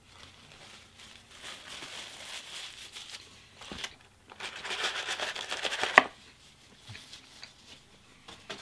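Paper rustling and crinkling as a paper fry carton is handled, then a louder run of rattling rustle as fries are shaken out of it onto a paper wrapper, ending in a sharp tap about six seconds in.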